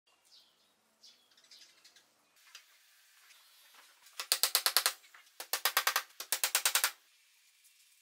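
Faint sparrow chirps, then a hammer driving a nail into a wooden board in three quick runs of rapid, sharp taps, each less than a second long.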